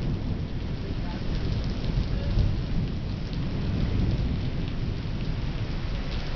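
Torrential thunderstorm rain pounding a city street and sidewalk: a dense, steady roar of water with a heavy low rumble underneath.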